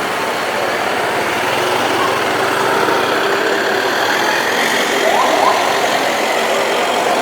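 Loud, continuous busy-street din with a mechanical, engine-like rumble, and a few short rising tones about five seconds in.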